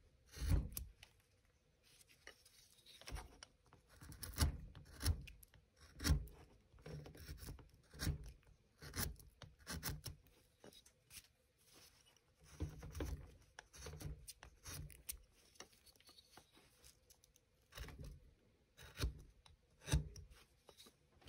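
Small hand carving tool cutting into basswood: short, irregular slicing cuts with pauses between them, mixed with soft knocks as the carving is turned in the hand.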